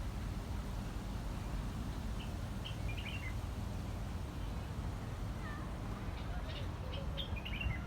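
Faint animal calls: a few short, high chirps in two small clusters and a single call that falls in pitch, over a steady low rumble of background noise.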